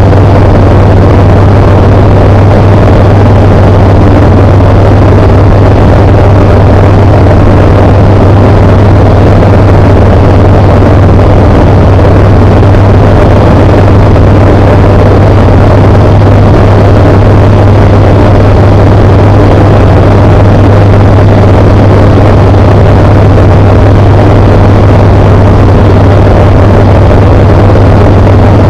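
Tecnam P92 Echo Super light aircraft's Rotax 912 four-cylinder engine and propeller running steadily in flight, a loud, even drone with a strong low hum that does not change.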